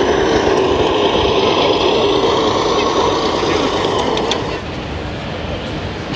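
Engine sound of a radio-controlled scale Unimog truck running, over the chatter of an exhibition-hall crowd; the engine sound drops away about four and a half seconds in.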